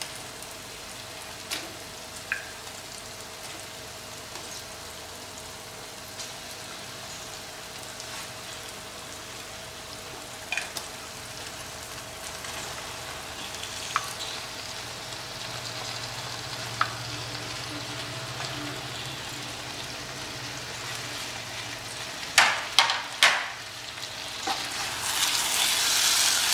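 Thick onion-tomato masala sizzling softly in a pan as pre-fried chicken pieces are pushed in from a glass bowl with a spatula, with scattered taps of the spatula against bowl and pan. A few sharper knocks a little before the end, then louder stir-frying as the spatula starts turning the chicken through the masala.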